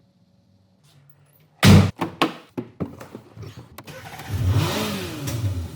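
BMW E87 1 Series engine starting after an oil service: a sudden loud catch with a few knocks about a second and a half in, then the engine running, its level and pitch swelling and dipping briefly near the end.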